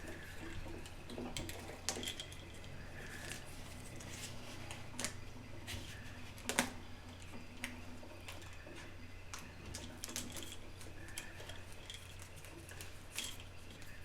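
Scattered light clicks and taps of hands and small tools working on a wall light switch and its wiring, the sharpest about six and a half seconds in, over a steady low hum.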